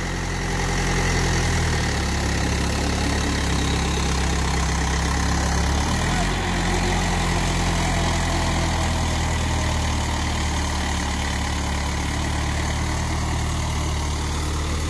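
Mahindra B-275 DI tractor's three-cylinder diesel engine running steadily under load, pulling a 7-foot Shaktimaan rotavator whose blades churn through the soil. The engine has been freshly overhauled.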